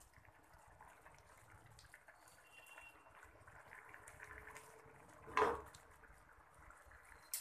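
Curry in coconut milk simmering in a kadai, with faint, steady bubbling and popping. About five and a half seconds in there is one brief, louder knock, and a short click near the end.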